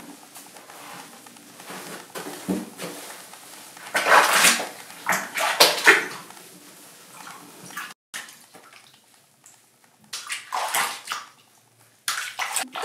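Bathwater splashing and sloshing in a bathtub in a few short bursts as a wet cat is washed by hand.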